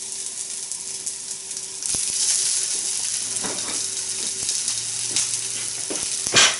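Grated jacket-potato hash brown patties sizzling in a hot frying pan. The sizzle grows louder about two seconds in as a second patty goes in, and a sharp knock comes near the end.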